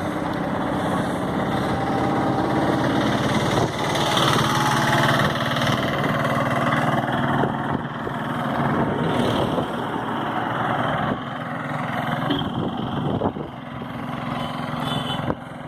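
A small engine running steadily at low speed.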